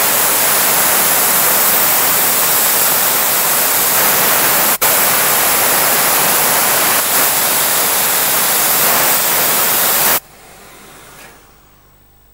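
Spotting gun spraying cold water through a stained fabric to flush out a red wine stain: a loud steady hiss, broken for an instant about five seconds in, that cuts off about ten seconds in.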